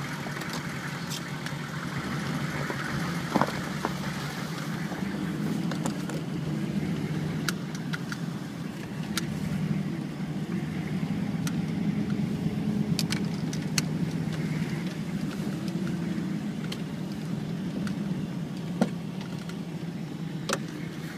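Vehicle engine running at low speed with tyre and road noise, heard from inside the cab, a steady low hum that rises and falls slightly. Scattered sharp clicks and ticks come through it.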